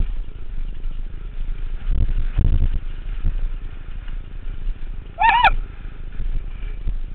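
Downhill mountain bike rattling and rumbling over a rough dirt trail, with wind buffeting the helmet-mounted microphone and a heavier knock about two and a half seconds in. About five seconds in, a brief high, wavering squeal.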